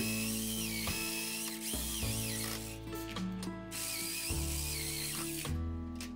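Bosch jigsaw cutting a kerf about halfway through a wooden dowel tenon, to take a wedge, over background music with held notes.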